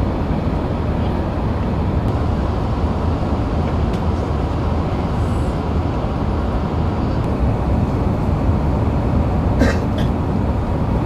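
Steady roar of an Airbus A380's engines and rushing air as heard inside the cabin in flight, with one short sharp sound near the end.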